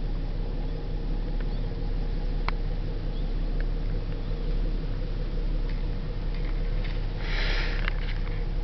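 Dense swarm of fish flies filling the air with a steady hum under a low rumble, with a few light ticks and a brief rustling hiss about seven seconds in.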